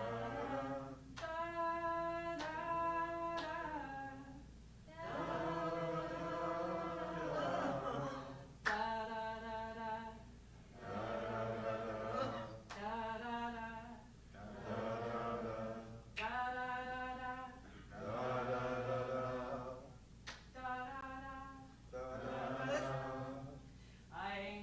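Unaccompanied singing in call and response: a woman sings a short phrase on syllables like "da da da" and a group of voices sings it back, over and over. This is a tune being taught by ear.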